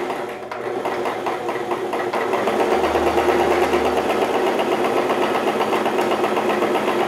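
Singer Tradition domestic electric sewing machine running steadily as it sews a zigzag stitch through fabric: a fast, even clatter of the needle and feed mechanism, growing a little louder over the first couple of seconds.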